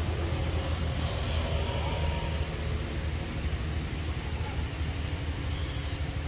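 Steady low rumble with no clear source, with a brief high-pitched chirp about five and a half seconds in.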